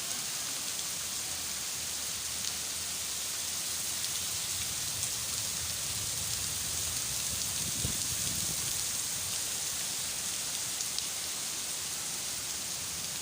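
Steady rain falling, an even hiss with scattered single drops ticking.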